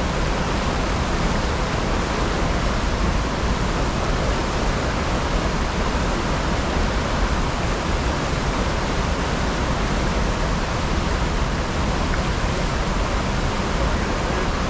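Steady rush of fast river water tumbling over rocks below a small waterfall, an even, unbroken noise.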